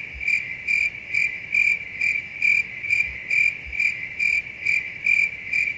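Cricket chirping, used as a sound effect: one high chirp repeating evenly about twice a second, starting and stopping abruptly. It is the comic "crickets" cue for an awkward silence in which nothing happens.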